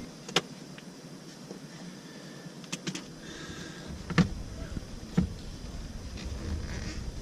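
Small sharp clicks and knocks, about five of them, one a quick double, as screws are taken out of the plastic dashboard trim around the center gauge cluster hood.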